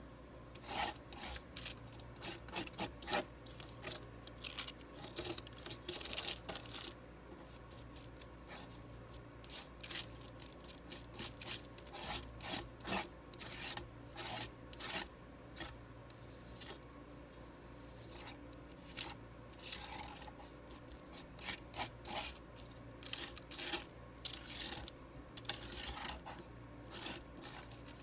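Palette knife scraping, smearing and folding thick oil paint on a palette: short, irregular strokes in quick clusters with brief pauses between them.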